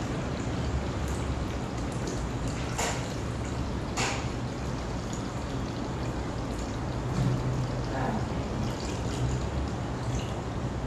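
A yeast starter poured from a glass flask into a plastic fermenter of wort, liquid splashing and trickling steadily, over a steady low hum: the yeast being pitched into the beer.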